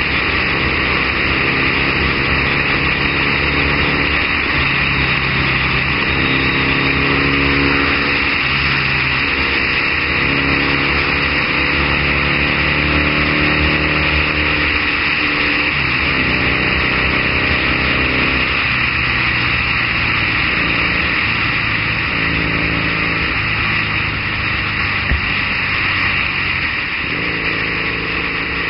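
Triumph Bonneville parallel-twin engine under way, heard over heavy wind rush on the camera. The engine note changes pitch several times as the throttle is worked through the bends.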